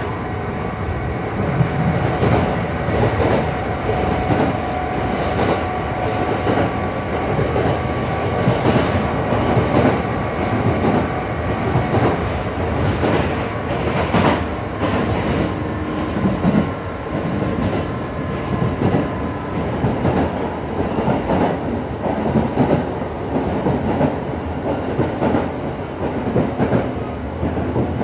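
Onboard running sound of a Kintetsu 2800-series resistance-control motor car with Mitsubishi MB-3110A traction motors. A steady-pitched motor and gear whine sits over wheel rumble and the clickety-clack of rail joints, and the whine fades about halfway through. The uploader notes an odd, unusual noise coming from the car's couplings (継手), unlike a normal low-tone car of this type.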